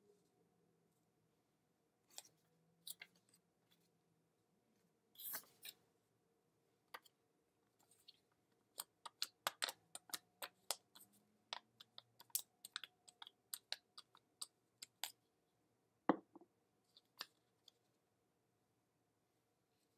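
Paper cutouts being handled close by: a run of short, sharp crinkles and clicks, thickest in the middle, with one louder knock a few seconds before the end.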